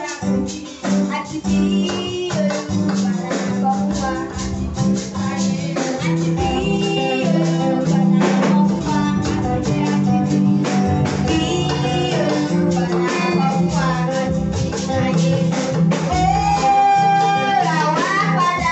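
Children's choir singing with a live band playing guitar, bass and drums, a steady beat under the voices.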